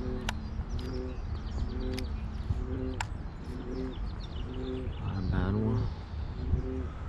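Birds chirping and calling, over a low pitched call that repeats regularly, with a few sharp clicks in the first few seconds.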